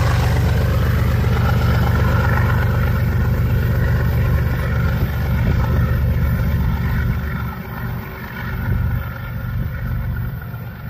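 A heavy vehicle engine running with a loud, steady deep rumble that eases off and turns uneven about seven seconds in.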